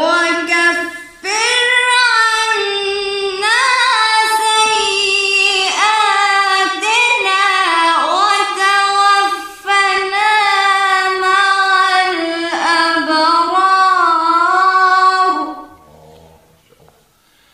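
A woman's high voice reciting the Quran in melodic tajweed style, with long held, ornamented notes that glide up and down. She breaks off about two seconds before the end.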